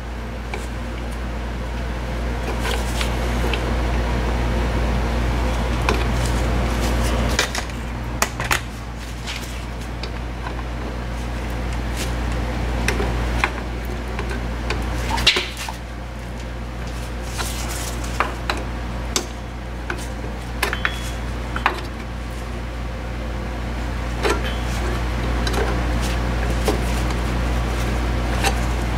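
Scattered metallic clicks and clinks of drum brake springs and a brake spring tool being worked off the shoes, over a steady low hum.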